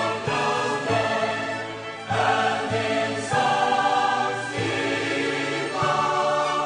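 Background music with choir voices singing held chords that change every second or so.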